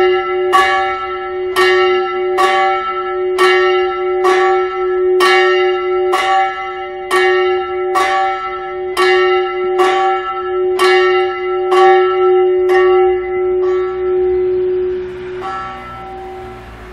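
Small 230 kg swinging church bell rung before a service, its clapper striking a little more than once a second in an uneven, lopsided beat over a strong humming tone. About thirteen seconds in the strikes weaken and space out as the bell swings to rest, and its hum dies away near the end.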